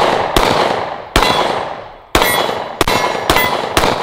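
Glock 26 9mm pistol fired rapidly, about six shots in four seconds at an uneven pace, each crack followed by a trailing echo and a few by a short metallic ring.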